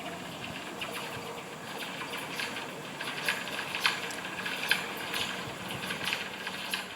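London Underground train arriving at a tube station: a steady rushing noise under a low hum, shot through with irregular sharp crackles and squeals, the really weird electrical whip sound of the tube.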